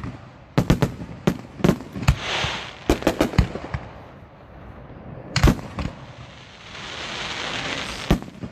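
Aerial firework shells bursting in a series of sharp booms, several in quick succession about three seconds in and a single loud one about five and a half seconds in. Between the bursts a hiss swells and fades twice.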